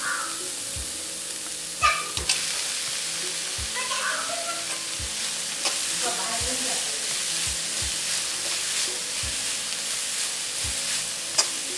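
A metal spoon stirring and scraping shredded banana flower in a metal kadai, over a steady sizzle of frying. The spoon knocks against the pan in a regular rhythm, with a few sharper clanks about two seconds in and near the end.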